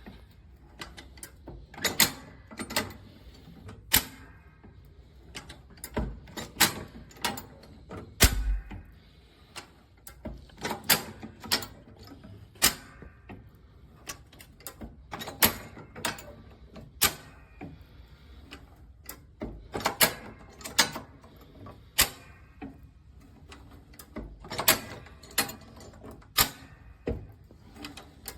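Sharp metallic clacks and knocks from a steel high-lift farm jack being worked and handled, coming irregularly one to two seconds apart, some in quick pairs, with a heavier low thump about eight seconds in.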